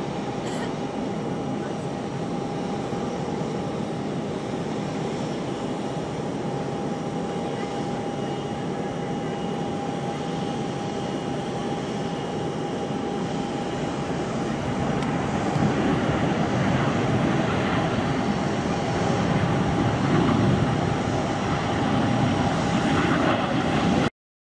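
Boeing 717's Rolls-Royce BR715 jet engines on landing and runway roll-out: a steady jet rumble with a thin steady whine, growing louder in the second half as the airliner rolls closer, then cut off abruptly near the end.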